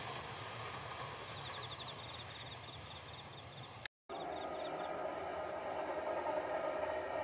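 Rural ambience of insects chirping: a rapid run of pulsing chirps over a steady high insect drone, with the faint low rumble of a distant freight train in the first half. The sound drops out for a moment about four seconds in, then a steady background noise follows.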